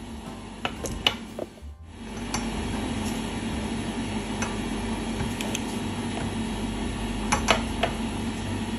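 Plastic measuring spoon clicking and tapping against a glass measuring jug while custard powder is scooped in: scattered light taps, a cluster about a second in and another near the end, over a steady low hum.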